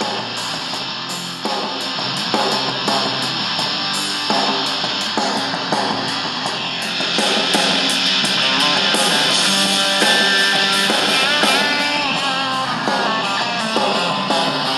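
Guitar-driven rock music playing through the ICStation GY20915 amplified dual stereo speaker kit, with almost no bass below about 100 Hz; it gets a little louder and brighter about seven seconds in.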